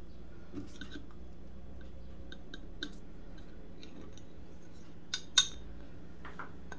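Small scattered clicks as a plastic syringe with a metal needle is drawn full of hot sauce from a ceramic bowl, with two sharp clinks about five seconds in, over a low steady hum.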